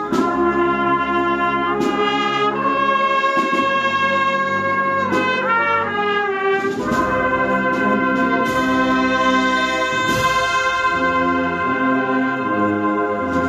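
Agrupación musical (Spanish processional band) of trumpets, trombones and tubas playing a processional march in held brass chords, with a few percussion hits.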